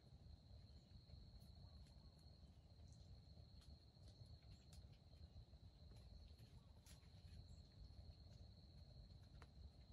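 Near silence: faint forest ambience with one steady high-pitched insect drone and scattered faint ticks and rustles.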